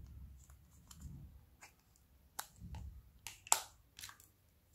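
Snap-on lid of a small plastic slime cup being pried off with the fingers: several short plastic clicks, the loudest about three and a half seconds in as the lid pops free, with soft handling rustle between them.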